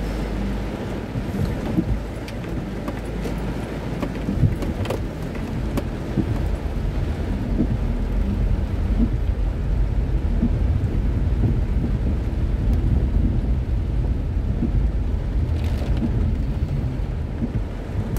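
Heavy rain drumming on a car's roof and windshield, heard from inside the cabin over a steady low rumble from the moving car, with a few sharp clicks.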